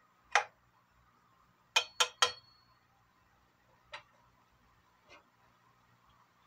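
Metal spatula knocking against a cooking pan: one sharp knock, then three quick taps on the rim with a brief metallic ring, followed by two fainter knocks.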